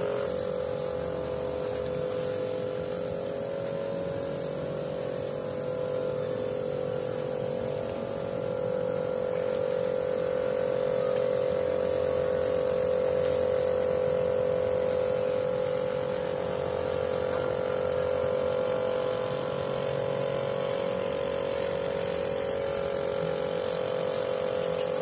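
Steady mechanical hum at one constant pitch, with a faint low rumble beneath it.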